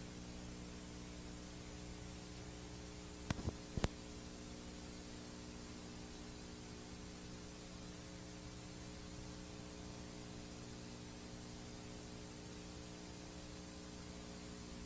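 VHS tape playback noise: a steady hiss with a low mains-type hum under it. A quick cluster of three or four sharp clicks comes about three and a half seconds in.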